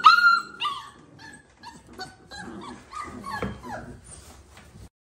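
Five-week-old Boerboel puppies whining and yipping: a few loud, high-pitched cries in the first second, then fainter whimpers and yips, cutting off suddenly near the end.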